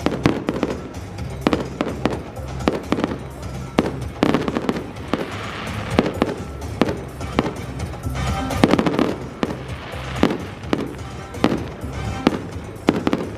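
Fireworks display: many sharp bangs going off in quick succession, with music playing along underneath.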